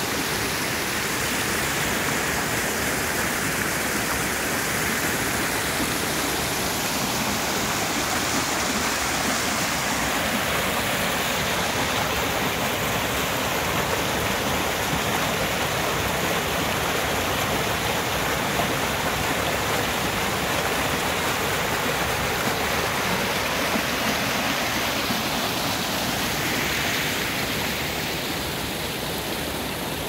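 Small mountain stream rushing and splashing over boulders and little cascades: a steady rush of water.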